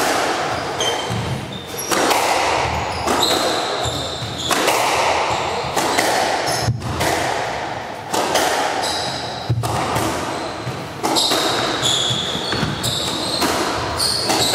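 Squash rally: the ball cracks off rackets and the court walls in quick succession, each hit ringing in the enclosed court. Sneakers squeak briefly on the wooden floor between shots.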